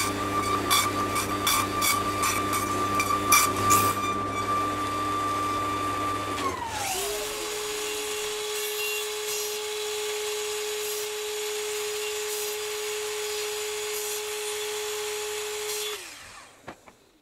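Table saw running with a series of sharp knocks, then winding down about six seconds in. A mitre saw then runs steadily with its blade cutting into a wooden rail, and winds down near the end.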